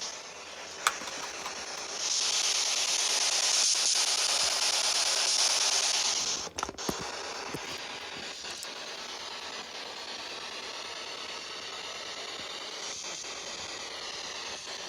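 Spirit box scanning FM radio: a steady hiss of static that gets louder for about four seconds, starting about two seconds in, broken by a few short clicks and dropouts as it skips between stations.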